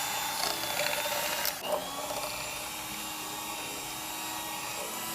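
Electric kitchen blender motor running at high speed with a steady whine, its pitch stepping down about a second and a half in.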